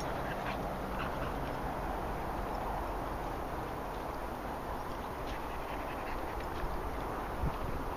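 Dogs panting and moving through grass, over a steady outdoor rustle.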